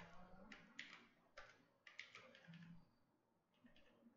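Faint computer keyboard typing: a handful of separate keystrokes with short gaps between them.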